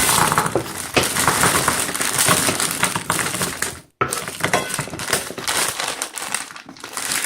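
Dishes and utensils clinking and scraping in a kitchen, with a steady noisy hiss behind them; the sound breaks off for an instant about four seconds in and then goes on.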